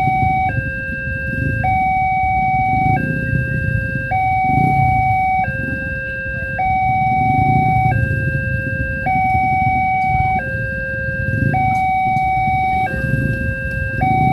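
Railway level-crossing warning alarm sounding a two-tone electronic signal: a lower and a higher steady tone take turns about every 1.2 seconds, repeating evenly, over a low rumble.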